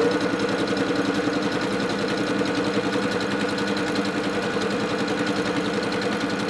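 Older electric sewing machine stitching fabric at a steady speed: an even motor whine under rapid needle clatter.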